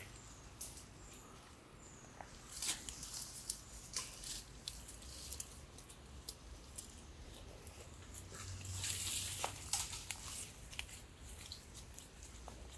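Goat grazing close by: irregular snaps and crunches as it bites off and chews weeds, with rustling of the undergrowth that is loudest a little past the middle.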